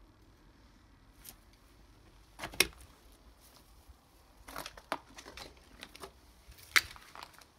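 Footsteps crunching on broken glass and rubble: a few separate gritty steps, the sharpest about two and a half seconds in and near the end.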